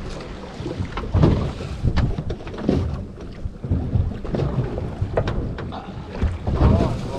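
Wind buffeting the microphone in uneven gusts, over choppy sea washing and slapping against the side of a small fishing boat, with a few sharp knocks.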